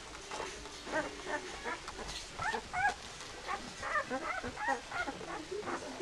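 A litter of newborn Swiss White Shepherd puppies whimpering and squeaking, with many short, high calls overlapping and rising and falling in pitch.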